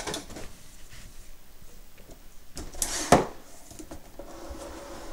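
Handling sounds from a hand on the battery-and-UPS rig on its cart: light rustles and knocks, with a louder rustle ending in a sharp clack about three seconds in.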